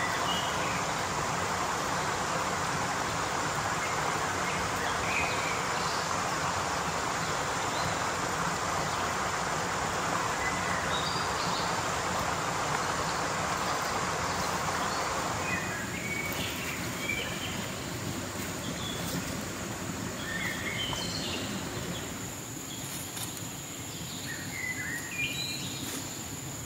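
Outdoor forest ambience: a steady rushing noise that drops away suddenly about 15 seconds in, with scattered bird chirps throughout and a steady high insect whine in the last few seconds.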